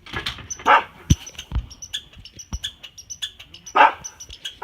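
A dog barking: a few short barks near the start and another near the end, with short pauses between.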